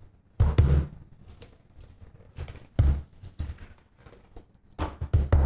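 Utility knife slicing through the tape and cardboard of a shipping package, with scraping and crinkling as it is cut open and a few dull knocks as the box is handled.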